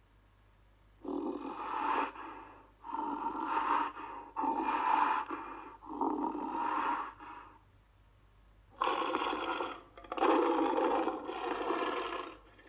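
King Kong movie sound effects: a giant gorilla's breathy growls and snorts, about seven short calls, the first four in quick succession and, after a pause of over a second, three more.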